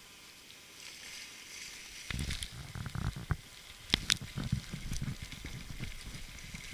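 Camera handling noise: a hand rubbing and pressing on the camera and the rubber tube of an inflatable boat, with irregular knocks and a few sharp clicks that start about two seconds in after a faint steady hiss.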